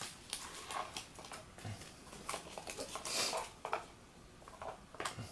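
Plastic card sleeves being handled: scattered rustles, crinkles and small clicks, with one longer hiss of sliding plastic about three seconds in.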